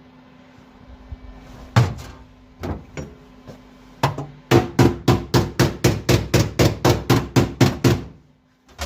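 Hammer blows on a steel floor patch panel, banging it down to fit against the floor. A few separate strikes come first, then a quick even run of about five blows a second for three or four seconds.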